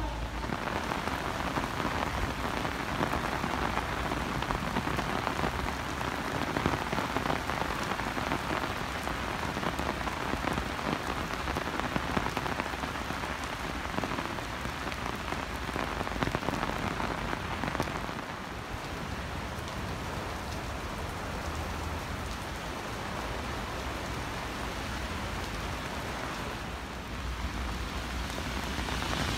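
Heavy storm rain falling and splashing on wet paving and streets, a steady hiss of rainfall that eases a little about two-thirds of the way through.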